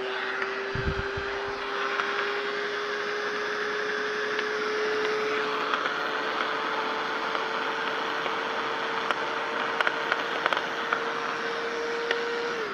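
Hyper Tough angle grinder running free, its motor whine rising slowly in pitch, then switched off near the end and winding down. A rubbing noise runs with it, which the owner takes for part of the spindle lock sticking.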